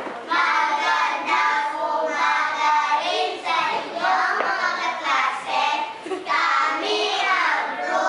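A group of children's voices calling out together in sing-song unison, in short phrases about a second long: a chorused greeting.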